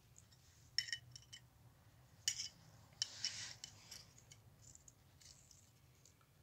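Faint metallic clicks and a short scrape of small engine parts being handled: a connecting rod and its bearing shells from a stripped-down engine, a cluster of light clicks about a second in and a few more with scraping around two to three seconds.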